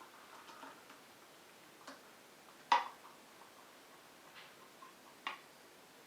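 A few light, scattered clicks and knocks, with one sharper knock a little before halfway and another near the end.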